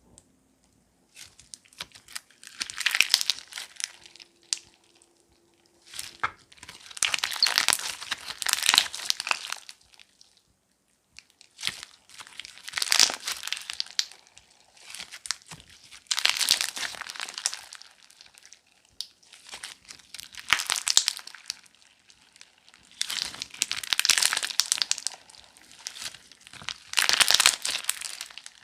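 Crunchy slime squeezed and pressed by hand, crackling in about seven separate bouts of a couple of seconds each, with short pauses between them.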